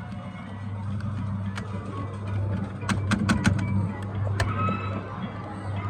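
Fun2learn Barney train kiddie ride running through its ride cycle: a steady low motor hum from its drive, with a quick run of sharp clicks about three seconds in and another click about a second later.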